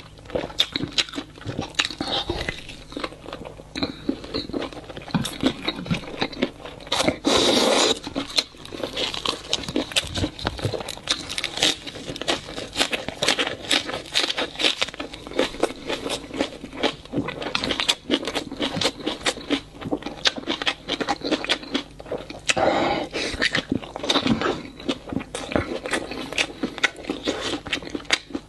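Close-miked eating: a man gnawing and chewing braised meat off large bones, with dense wet mouth clicks and lip-smacks and some crunching, a few louder bites standing out.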